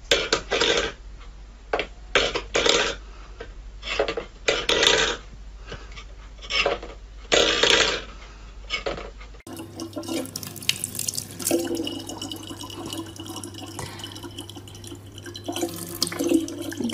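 A stainless-steel bowl knocked and scraped on a wooden floor by a cat, in a run of short clatters. About nine seconds in it gives way to a thin stream of water running from a dispenser tap into a plastic bottle, with a steady hum under it.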